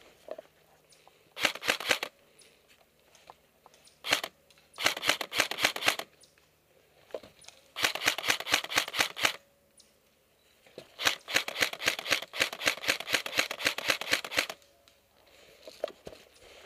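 M16-style airsoft rifle firing close by. There are four bursts of rapid clicking shots and one single shot, and the longest burst near the end lasts about three and a half seconds.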